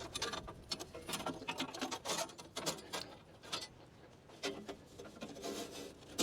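Quiet, irregular clicks, taps and short scrapes of hands handling metal parts while a new band blade is fitted on a Wood-Mizer LT40 band sawmill.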